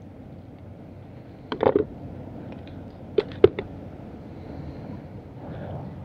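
Water splashing as a small fish is handled and released by hand in shallow water: a short splash about a second and a half in, then a quick run of sharp slaps and splashes a little after three seconds, over a steady low hiss.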